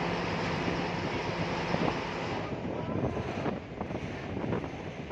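Wind blowing steadily with a faint low hum underneath. About halfway through the high hiss thins and the sound turns more uneven and gusty.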